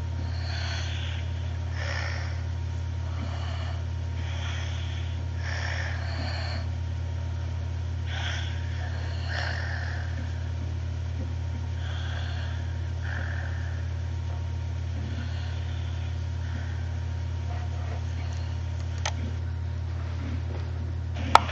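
A sleeping person's noisy snoring breaths through mouth and nose, faint hissy puffs every couple of seconds, over a steady low hum. A sharp click comes near the end.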